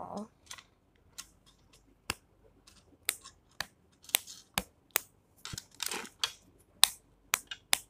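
Blue metal snap hair clip being clicked open and shut by hand: a dozen or so sharp clicks at irregular intervals.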